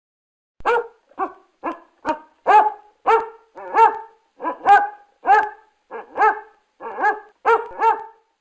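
A dog barking over and over, short sharp barks about two a second, starting about half a second in after dead silence.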